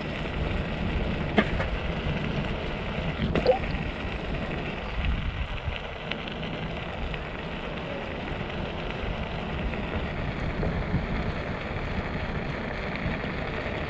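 Onewheel rolling over a concrete path: a steady hiss of tyre and road noise, with a couple of sharp clicks in the first few seconds.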